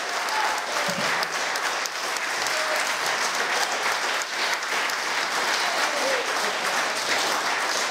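Audience applauding steadily, a dense clatter of many hands clapping, with a few voices heard over it.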